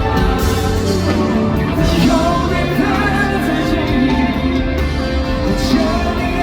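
Live concert music: a band playing with a singer's voice over it, recorded through the venue's sound system from the audience.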